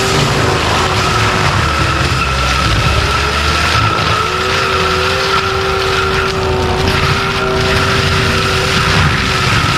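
Compact track loader running a forestry mulcher head: the diesel engine's heavy drone under a steady high whine from the mulcher drive, continuous and loud, the whine briefly dropping out near seven seconds.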